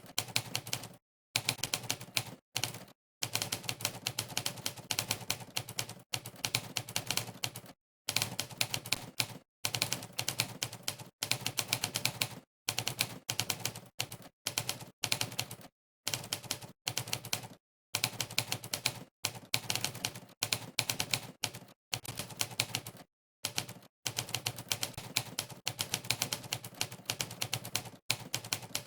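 Monkeytype's 'typewriter' keystroke sound effect, one sharp typewriter clack per key press, played in fast runs of one to two seconds broken by short dead-silent pauses between words.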